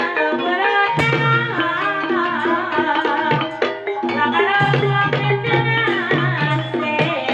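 Javanese gamelan music accompanying an ebeg horse dance: hand-drum strokes over sustained metallophone notes, with a voice singing over them.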